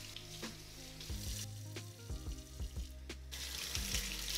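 Water running from a kitchen tap over hands being washed: a hissing splash that gets louder near the end. Background music with steady low notes plays underneath.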